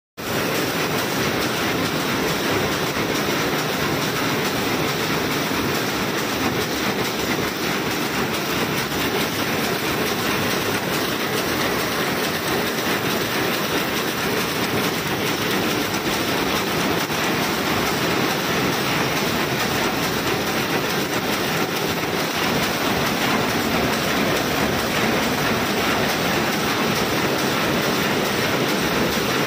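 Double-width jacquard rapier loom running at speed: a loud, steady mechanical clatter of rapid repeated beats that goes on without a break.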